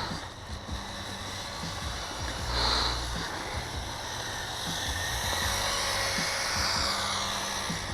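Turnigy rally RC cars' electric motors whining as they drive past, with tyre noise, swelling briefly about two and a half seconds in and again for a couple of seconds near the end.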